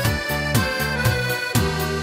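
Background music: sustained keyboard-like chords over a steady beat of about two low drum thumps a second.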